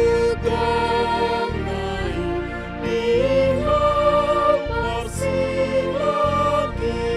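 A woman singing a slow hymn in the Batak Toba language, holding long notes over sustained accompanying chords.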